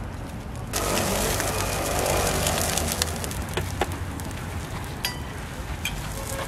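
Oil sizzling on a hot griddle as sorghum hotteok fry; the sizzle gets suddenly louder about a second in. A few sharp metal clicks come later, as steel hotteok presses are set down and pressed onto the griddle.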